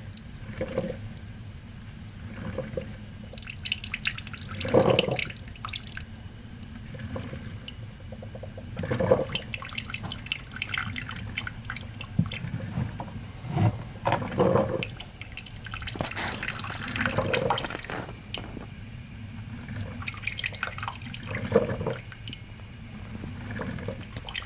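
Kitchen Selectives single-cup drip coffee maker brewing: hot water spurting and dripping through it in irregular bursts every second or two over a steady low hum.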